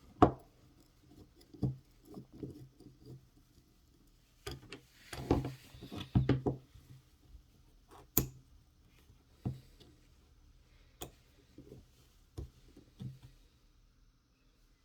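Scattered clicks, taps and knocks of a small hand ratchet, its screws and a screwdriver being handled and set down on a work surface, busiest a few seconds in, with a few single sharp clicks later.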